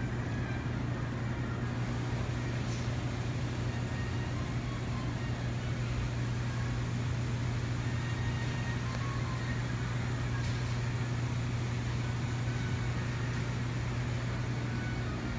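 Steady low machine hum with a few faint ticks.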